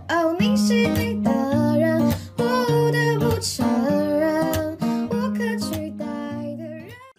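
Background music: a song with plucked guitar and a singing voice over a steady bass line.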